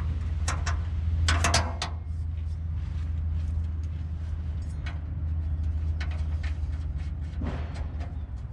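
Scattered metal clicks and clinks, with a quick cluster about a second and a half in and a short scrape near the end, as a new Belltech Street Performance rear shock absorber is worked onto its upper mount by hand. Under it runs a steady low hum.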